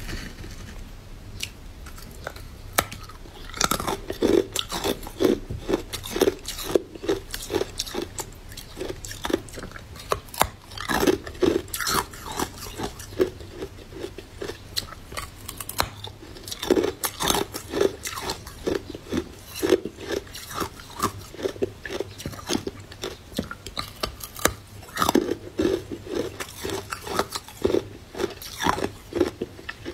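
A person biting and chewing pieces of hard green frozen ice: loud crisp crunches come in quick runs, with short pauses between the bites.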